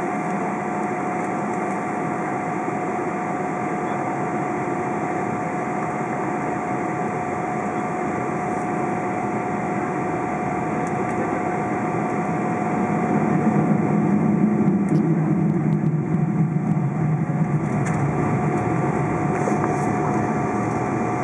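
Cabin noise of a Boeing 777-200 taxiing, heard from a window seat over the wing: a steady engine hum with a steady whine on top. About halfway through, a low rumble swells louder for a few seconds, then eases.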